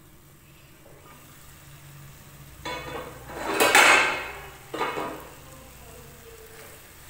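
The steel lid comes off a kadai about two and a half seconds in, then a loud burst of sizzling as soya-chunk bhurji, simmered covered on low heat, is stirred with a wooden spatula; a second, shorter burst of pan noise follows about a second later.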